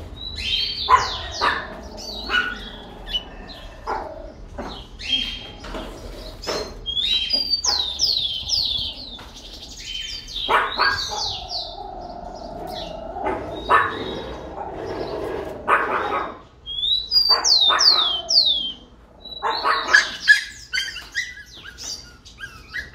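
Rufous-collared sparrow (tico-tico) singing, its phrase of high, sliding, falling whistles repeated several times. A dog barks in the background.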